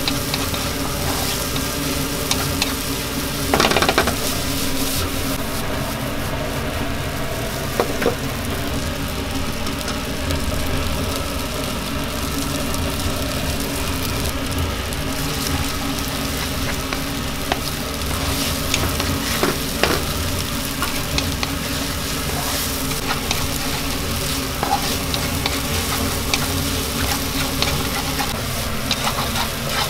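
Noodles and chicken sizzling in a frying pan on a gas burner while being stirred and tossed with a spatula, with steady frying and scraping throughout. A few sharp knocks stand out, the loudest about four seconds in.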